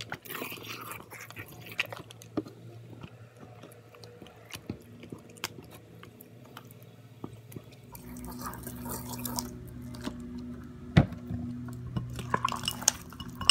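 Hand squishing and kneading glue slime in a glass bowl as borax activator is worked in: wet squelching with many small sticky clicks. A sharp knock comes about eleven seconds in, and a faint steady hum joins a few seconds before it.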